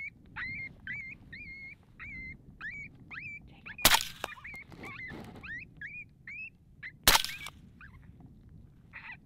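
Two suppressed rifle shots from a 6mm ARC AR-15, about three seconds apart, sharp and by far the loudest sounds; the second is a follow-up shot at the same coyote. Under them an electronic predator call keeps playing short, high, squealing calls, about two a second.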